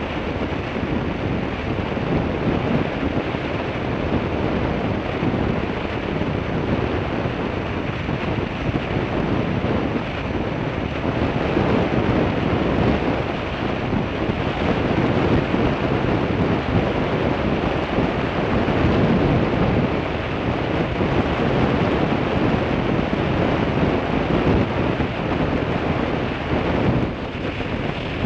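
Steady wind rushing over the microphone of a camera on a moving bicycle, the noise of riding at speed along a road, dipping briefly near the end.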